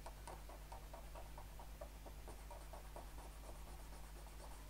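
Cotton swab scrubbing the BGA solder pads clean before reballing, faint quick rubbing strokes about five a second that thin out near the end, over a low steady hum.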